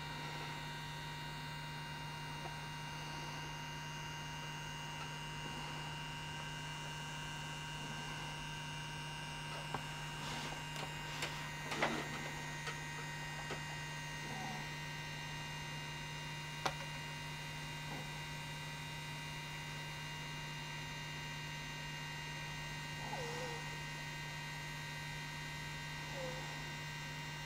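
Steady electrical mains hum with a few faint higher whining tones, broken only by a few soft clicks and rustles near the middle.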